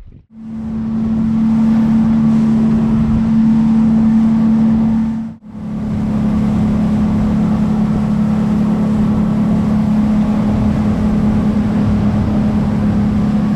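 A motorboat's engine running steadily at cruising speed under way, a loud even drone with wind and water hiss. It cuts out briefly about five seconds in and comes back at the same pitch.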